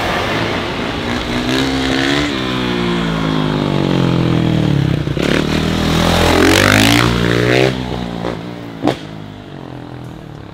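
Kawasaki dirt bike engine revving as the rider holds a wheelie past close by. The pitch climbs, sags for a few seconds, then climbs again to its loudest before cutting off sharply. A single sharp click follows.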